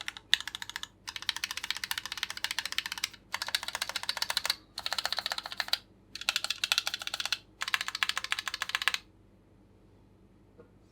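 Keychron Q8 aluminium mechanical keyboard with Gateron Oil King linear switches being typed on fast. The clacking comes in runs of one to two seconds with short pauses between, and stops about nine seconds in.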